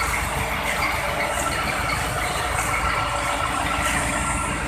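Steady outdoor street noise: traffic and the murmur of a gathered crowd.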